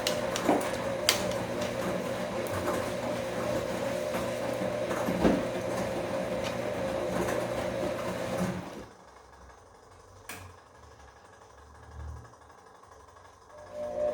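Bosch Komfort-Klasse front-loading washing machine tumbling the wash: the drum motor runs with a steady whine and a few clicks for about nine seconds, then stops. After a pause of about five seconds, with only faint low thumps, it starts again near the end.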